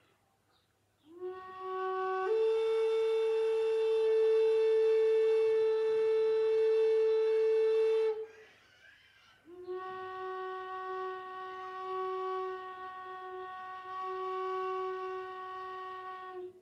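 Wooden Native American flute (High Spirits) playing two long held notes. The first starts a little lower and steps up after about a second to a higher note held for about six seconds. After a pause of about a second and a half, a lower note is held steadily until the end.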